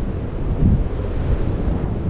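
Blizzard wind buffeting the microphone: a steady low rumble, with a stronger gust a little over half a second in.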